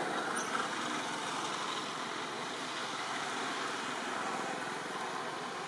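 Steady outdoor background noise, an even hiss with no distinct calls or knocks.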